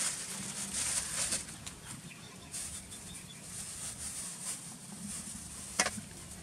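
Irregular bursts of rustling and scraping from hands working food in a metal bowl, with one sharp click near the end.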